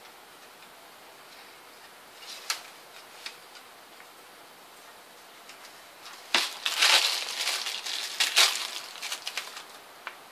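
Small plastic bag crinkling and crackling, with sharp clicks, as a white charging cable is taken out of it; the crinkling starts with a click about six seconds in and lasts about three seconds. A single light tick comes earlier, about two and a half seconds in.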